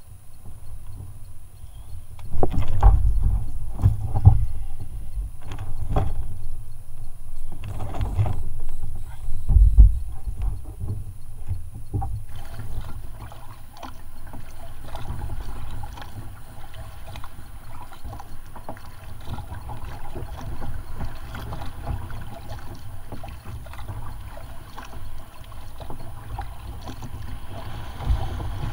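Double-bladed paddle working a sit-on-top kayak through calm sea: water splashing and dripping off the blades with each stroke over the hull. It is preceded by a stretch of loud, irregular knocks and thumps on the kayak.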